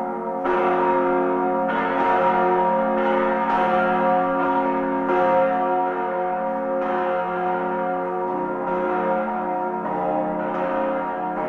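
Church bells ringing, a new strike every second or two, each one ringing on over a steady low drone.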